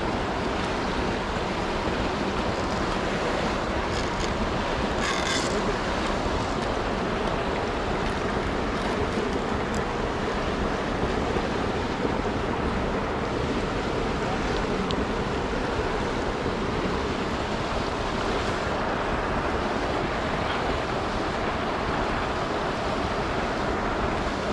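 Fast-flowing river rushing over shallow rapids in a steady, unbroken wash of water noise. A few brief rustles of handling come about four to ten seconds in.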